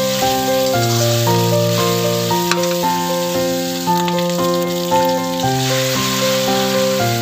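Pork belly cubes sizzling as they fry in a wok, with background keyboard music playing a melody over them.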